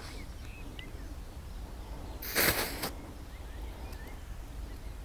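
An electric firework igniter fired remotely, going off in one short burst of hiss about two and a half seconds in. It lights on the first button press at the end of 50 m of extended wire.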